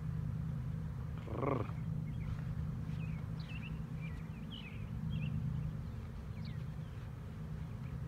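Steady low hum of a honey bee swarm buzzing in the air around a hive box as the bees settle into it.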